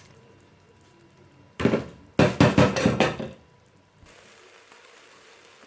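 Washed basmati rice being poured into a cooking pot, with a run of sharp knocks of the bowl and utensil against the pot: one at about a second and a half in, then several in quick succession for about a second.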